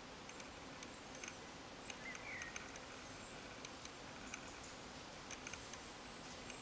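Quiet woodland ambience: a faint steady hiss with scattered small ticks, and one short bird chirp about two seconds in.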